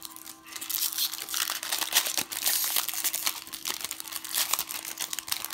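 Foil wrapper of a baseball card pack crinkling and crackling as it is torn open and handled.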